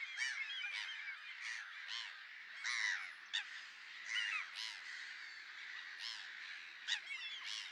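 A chorus of many birds calling over one another, with louder single calls standing out every half second or so.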